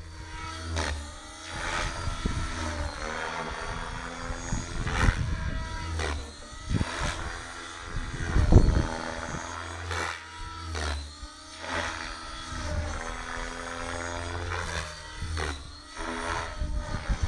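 Align T-Rex 550E DFC electric RC helicopter flying 3D aerobatics: the whine of its motor and rotors rises and falls in pitch again and again, broken by repeated short whooshes. A low rumble about halfway through is the loudest moment.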